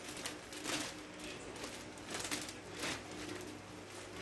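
Large uninflated foil (mylar) dolphin balloon crinkling and rustling as it is unfolded and shaken out by hand, an irregular run of crackles.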